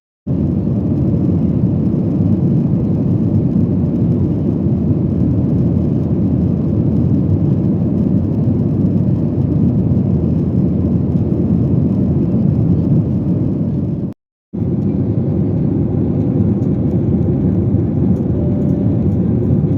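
Steady airliner cabin noise inside a Boeing 737-8ZY: a deep, even roar of engines and airflow. It drops out briefly near the start and again about 14 seconds in.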